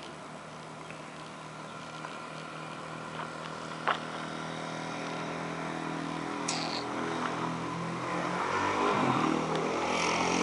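Engine of heavy construction machinery running steadily and growing louder near the end, with a sharp clank about four seconds in.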